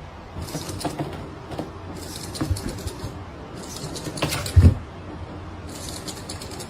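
A few irregular knocks and thumps over a steady low hum, the loudest thump about four and a half seconds in.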